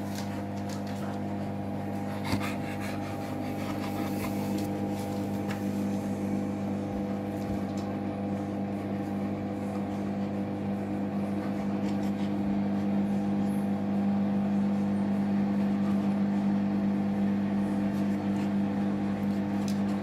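Hoover front-loading washing machine running with wet laundry turning in the drum: a steady electric hum that grows a little louder about two-thirds of the way through.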